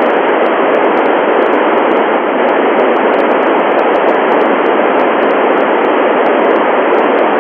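Loud, steady FM hiss from an Icom IC-9700 transceiver's receiver, with its squelch open on the Tevel-7 satellite's 436.4 MHz FM downlink and no station coming through.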